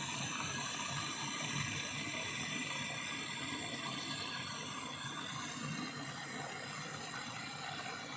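Gas brazing torch flame hissing steadily while the filter drier of a single-door refrigerator is being brazed.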